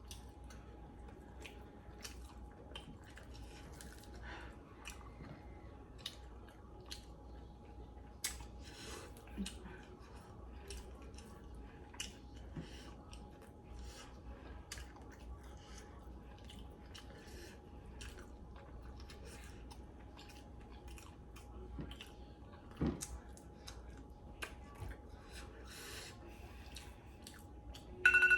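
A person chewing and eating chicken wings close to the microphone, with many short mouth clicks and smacks scattered throughout.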